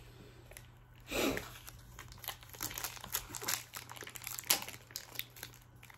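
Wrapper of a trading-card pack crinkling and crackling in the hands as it is opened, with a louder rustle about a second in.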